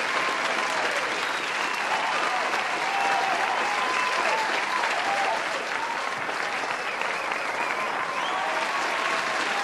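A crowd applauding steadily, with cheering voices mixed in.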